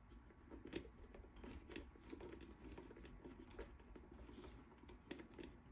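Near silence, with faint scattered clicks and light handling noise from a small brass fitting being set against a thin plastic container.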